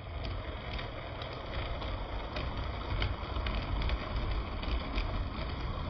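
Model railway railcar running along the layout's track: a steady low rumble with a high, even whine over it and irregular light clicks.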